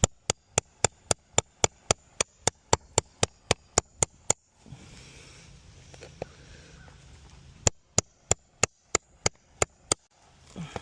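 Hammer tapping a metal nail puller in quick, even strikes, about three a second, to work it under a roofing nail: a run of about sixteen taps, a pause, then about eight more.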